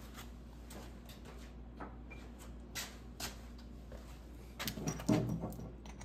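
Scattered light clicks and knocks of small plumbing parts being handled, with a few closer together near the end, over a steady low hum.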